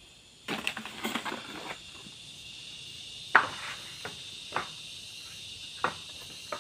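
Bamboo poles clattering together as they are handled, followed by several separate sharp knocks of bamboo on bamboo, the loudest about three seconds in. A steady high insect drone runs underneath.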